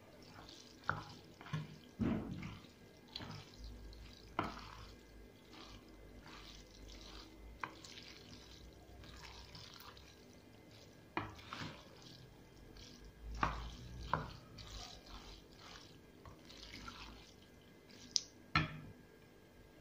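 Water splashing in a kitchen sink as dishes are washed, with scattered knocks and clinks of dishes and utensils, two sharp ones close together near the end.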